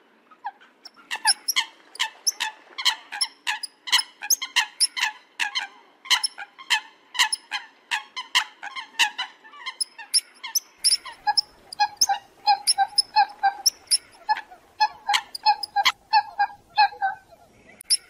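Eurasian coot calling: a rapid run of short, sharp, loud calls. They come thick and irregular at first, then from about eleven seconds in as a more even series of about four a second.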